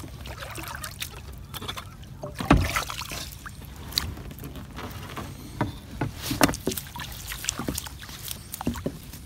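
Wet crab ring rope being hauled hand over hand into a kayak, water splashing and dripping off the line, with scattered short knocks. One heavier thump comes about two and a half seconds in.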